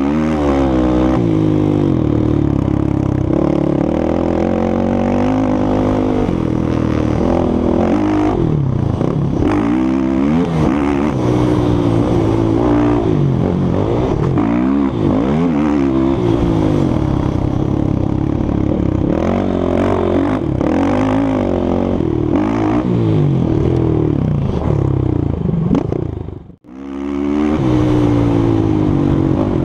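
A 450cc four-stroke sport quad engine under hard riding, its pitch rising and falling again and again as the throttle is opened and closed. The sound cuts out briefly near the end.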